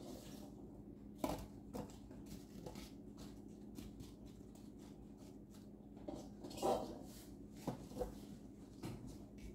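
Scattered soft clicks and knocks of sliced apples being handled and set into a glass baking dish, the loudest a little after six and a half seconds in, over a faint steady hum.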